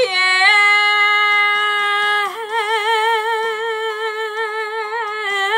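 A woman singing one long held note on a sung vowel, steady at first, then lifting slightly about two seconds in and carrying a vibrato.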